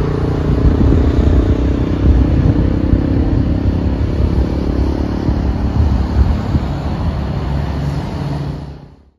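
Loud, steady low rumble with a faint hum in it, fading out just before the end.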